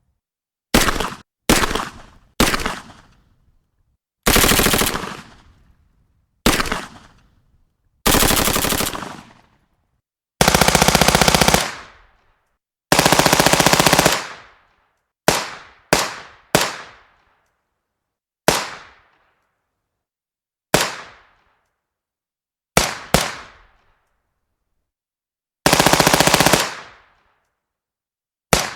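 Heckler & Koch MP5 9 mm submachine gun firing on full automatic: about sixteen separate bursts and brief cracks, from a few rounds up to a long burst of about a second and a half, each dying away in a short echo, with silence between.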